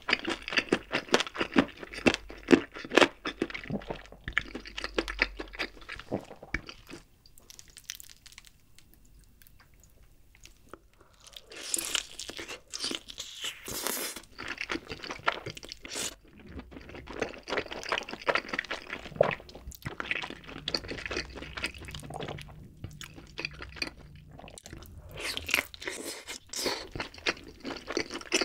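Close-miked biting and chewing of food, with wet, crunchy mouth sounds. A few seconds of quiet fall near the middle, then bites into a glazed grilled chicken drumstick and more chewing.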